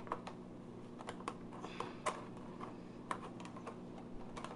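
Faint, irregular light clicks and taps of plastic makeup palette trays being handled in their case, over a low steady hum.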